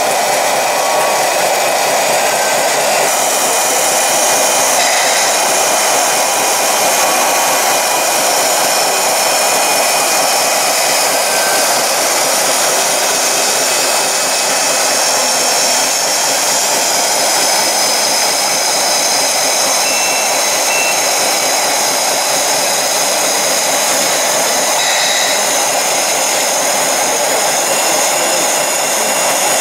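Small electric hydraulic pump of a 1/14-scale RC tipper trailer running steadily, a continuous hum with a faint high whine, as the hydraulic ram raises the tipper body.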